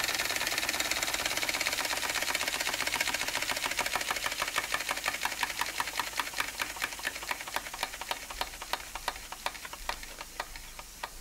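Bing vertical toy steam engine running down with its burner removed: a fast, even beat of exhaust chuffs and clicks that slows steadily and grows fainter as steam pressure drops and the flywheel loses speed.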